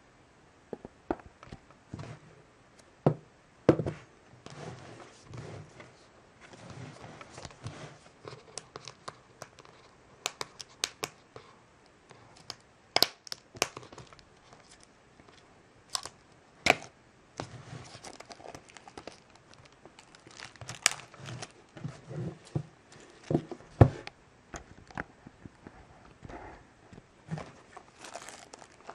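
Clear plastic shrink-wrap being picked at with fingernails, torn and peeled off a cardboard box by hand: irregular crinkling with sharp crackles and ticks.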